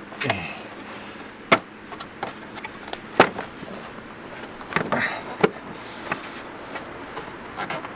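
Sharp plastic clicks and knocks, about half a dozen spread over several seconds, with a short scrape near the start: the plastic engine cover being worked loose from its mounts, the engine not running.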